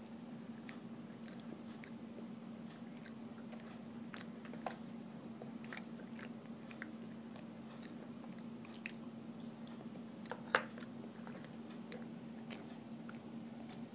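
Raw cornstarch being chewed, with small crunchy clicks scattered throughout and one louder click about ten and a half seconds in, over a steady low hum.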